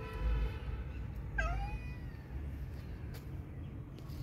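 A cat meowing: a drawn-out call that fades out in the first half second, then one short meow about a second and a half in that drops sharply in pitch.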